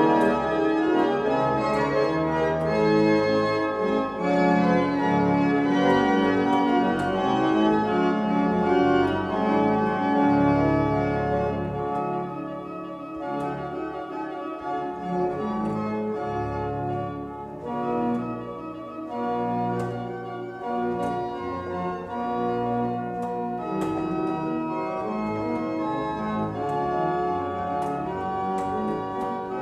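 Church pipe organ playing an improvisation in concerto style, sustained chords changing steadily. It is fuller and louder for the first ten seconds or so, then drops to a quieter, lighter sound, the contrast between the larger and smaller group that the concerto form is built on.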